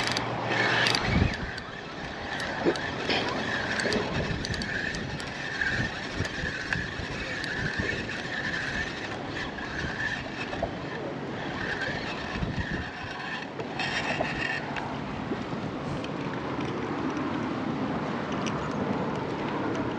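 Spinning reel being cranked to wind in line, a whirring that pulses about once a second with each turn of the handle and stops about two-thirds of the way through, over steady wind noise on the microphone.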